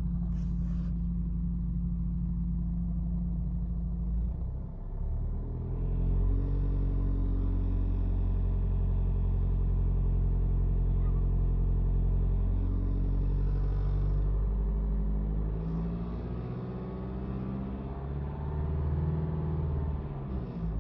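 Car running, its engine note rising about five seconds in and holding steady, easing off around fifteen seconds and swelling again near the end. It is recorded to catch an unidentified extraneous noise.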